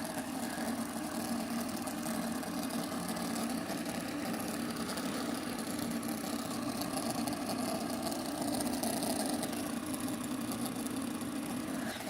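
Several fidget spinners spinning at once, their bearings giving a steady whirring hum.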